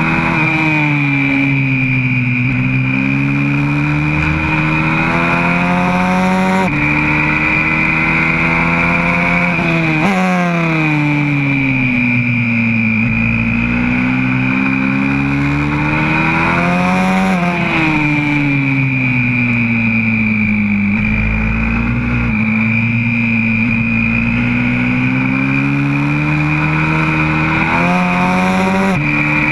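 YCF 125cc four-stroke pit bike engine heard close up from on board, pulling up in pitch on the straights and falling away as it slows for corners, with several abrupt jumps in pitch at gear changes. A steady high whine runs over the engine note.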